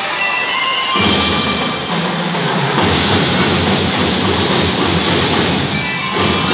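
School drum and lyre band playing: drums beating under ringing mallet-percussion tones, the drumming growing denser about three seconds in.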